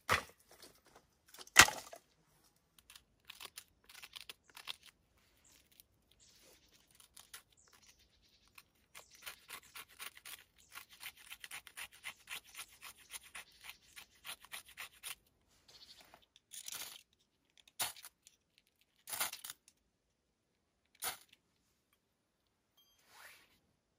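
Knife blade scraping and shredding dry fibrous bark on a stone to make tinder: a quick run of short scrapes, about four a second, then a few separate, louder strokes. Two sharp knocks come in the first two seconds, the second one the loudest sound.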